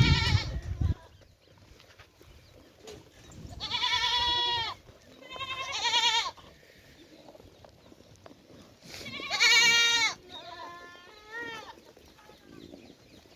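Goats bleating: a string of wavering bleats, one right at the start, three loud ones spaced through the middle, and a fainter, broken one near the end.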